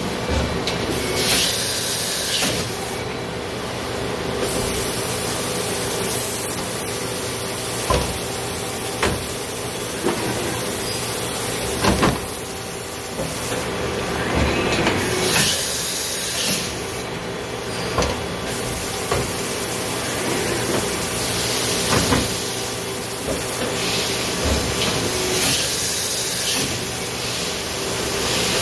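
Mori Seiki NH6300DCG II horizontal machining center's automatic tool changer and tool magazine cycling: a steady machine hum, broken by several bursts of hissing lasting a second or two and a few sharp clunks.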